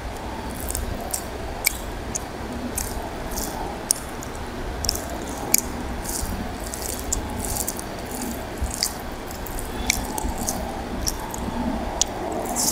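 Fingers mixing and mashing rice with curry on a plate: soft wet squishing with many small, irregular crackles and clicks.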